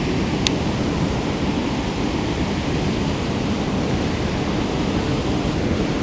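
Water rushing steadily through a dam spillway, a loud, even wash of falling and churning water, with a single sharp click about half a second in.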